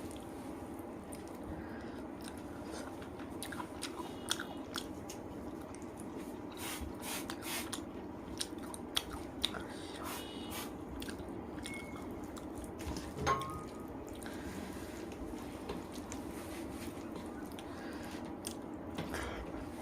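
A person chewing and biting a mouthful of rice and spicy chicken curry, with scattered small wet clicks and smacks; a sharper click comes about 13 seconds in. A steady low hum runs beneath.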